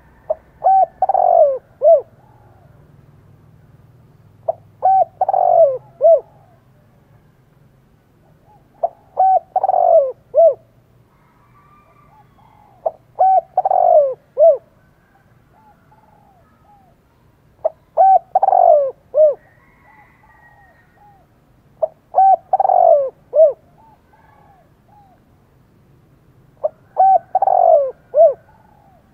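Male spotted dove giving its fighting challenge coo, the call used to provoke wild males. Seven phrases come about four seconds apart, each a few short coos running into one longer, louder coo and a short closing note.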